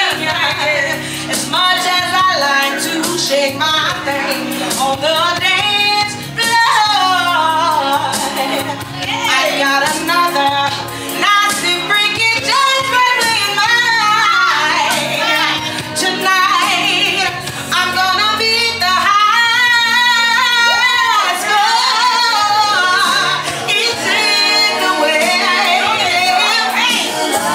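A song playing: a woman singing long, wavering runs over a steady band backing.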